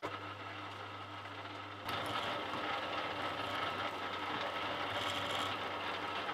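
Drill press running with its bit drilling into a sheared steel locating pin in a Land Rover Series 3 gearbox shaft. A steady motor hum, joined about two seconds in by a louder, even cutting noise as the bit bites into the metal.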